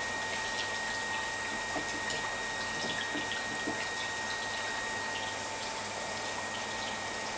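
Steady running and trickling water with scattered small splashes, typical of an aquarium's filtration or aeration, under a faint steady high whine.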